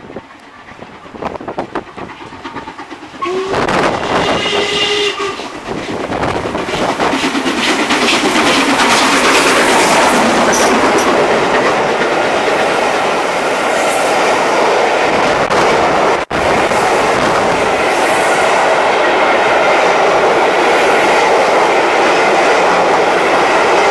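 LMS Princess Coronation Class 4-6-2 steam locomotive Duchess of Sutherland approaching and passing with its train. Its whistle sounds for about two seconds a few seconds in. Then the loud, steady rush of the locomotive and coaches going by builds up and holds, with wheels clacking on the rails.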